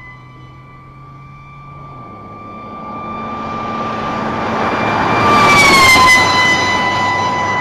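A steady single-tone siren on a pickup truck speeding past at high speed, with tyre and wind noise swelling as it nears. Its pitch holds a little higher on the approach, then drops to a lower steady tone about six seconds in as the truck passes: the Doppler effect.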